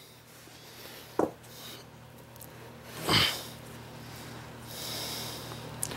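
Quiet handling sounds of a new piston with its rings being set down and the next one picked up at the bench. There is a light click about a second in, a short dull knock about three seconds in, and a soft rustle near the end.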